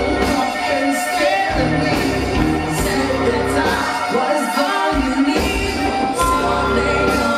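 Rock band playing live, with electric guitars, bass and drums.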